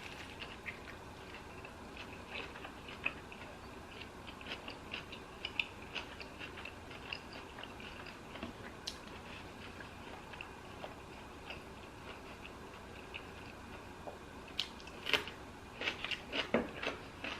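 Quiet close-up chewing of a lettuce-wrapped sandwich: soft, wet mouth clicks throughout, with a louder run of crunchy bites near the end.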